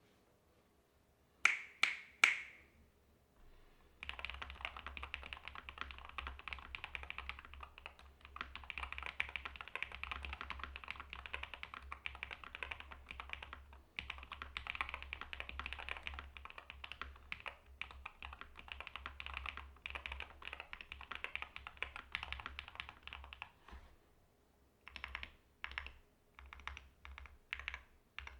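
Slice75 HE keyboard, with Hall-effect magnetic switches, being typed on. Three sharp keystrokes come about two seconds in, then fast continuous typing runs from about four seconds to about twenty-four seconds with short breaks, then separate single keystrokes near the end.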